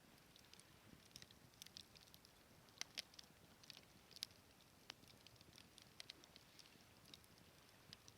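Wood bonfire crackling, with irregular small snaps and a few sharper pops around three to five seconds in.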